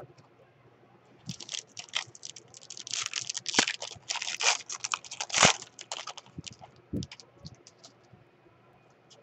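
The foil wrapper of a 2017 Panini Prestige football card pack being torn open and crinkled by hand: crackling tearing starts about a second in and is loudest in the middle. It thins to a few light ticks and rustles as the cards come out near the end.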